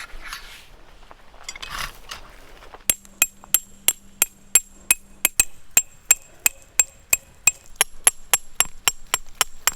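Tent peg being hammered into the ground: a quick, even run of sharp strikes, about four a second, starting about three seconds in, each with a ringing metallic clink.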